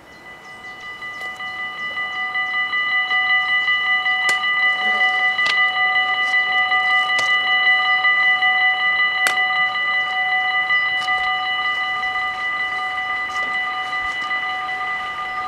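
Dutch level-crossing warning bells ringing rapidly and steadily, swelling to full volume over the first few seconds, with a few sharp clicks over them. They warn that a train is approaching while the crossing barriers lower.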